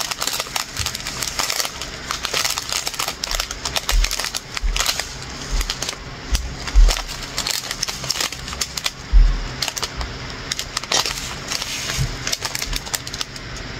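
Small plastic bags of round acrylic diamond-painting drills being handled: crinkling plastic and the tiny beads clicking and rattling inside, with several dull knocks against the table.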